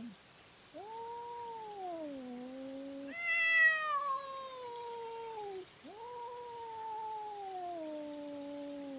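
Cats caterwauling: three long, drawn-out yowls one after another, each sliding down in pitch, the middle one starting higher and loudest. These are the warning yowls of cats squaring off in a fight.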